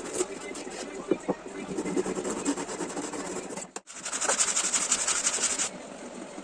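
Wood being worked by hand with rapid rubbing, rasping strokes. The sound breaks off briefly a little before four seconds in, then comes back louder and hissier.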